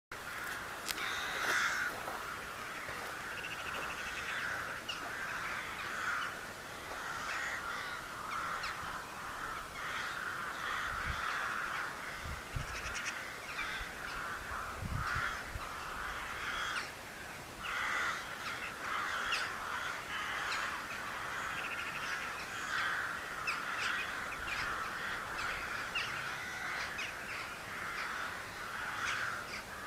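A flock of birds calling over one another without pause, many short repeated calls overlapping into a continuous chorus.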